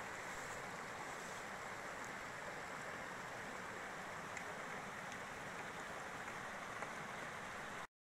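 Small mountain stream rushing steadily over rocks and little cascades, with a few faint clicks; the sound cuts off suddenly near the end.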